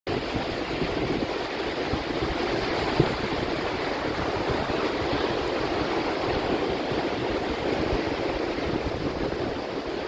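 Ocean surf breaking and foam washing up a sandy beach, a steady rushing wash, with wind buffeting the microphone in low, ragged rumbles. One sharp bump stands out about three seconds in.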